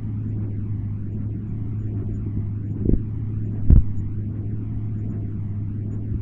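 Hydrophone recording from a test the title calls defective: a steady low hum over rumbling noise, broken by two dull thumps about three seconds in, the second a little louder.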